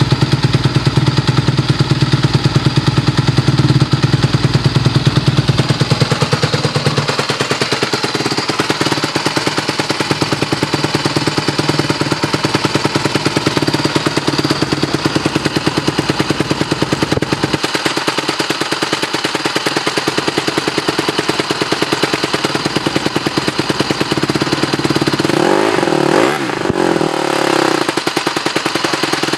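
Honda CRF150R's four-stroke single-cylinder engine idling with a rapid, even beat, freshly rebuilt and warming up after a cold start. Near the end the engine is blipped once, its pitch rising and falling.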